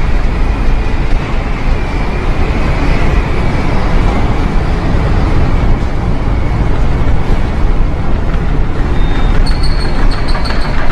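Storm wind and heavy seas on a ship's deck: a loud, steady roar with a deep rumble, the wind buffeting the microphone. Near the end a high, thin tone sounds in several short pulses.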